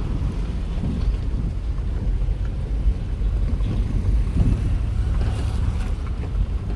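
Low, steady rumble of a vehicle travelling along the road, with wind buffeting the microphone.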